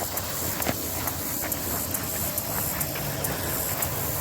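A motor vehicle's engine running steadily, with faint repeated ticks over a low rumble.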